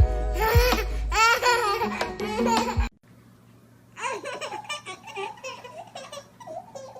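Laughter over music, cut off abruptly about three seconds in. After a short pause, quieter babbling vocal sounds follow.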